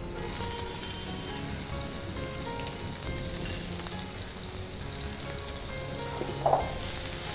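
Food frying in hot oil in a frying pan on a gas stove: a steady sizzle that cuts in suddenly at the start, with a brief louder spit or clink near the end.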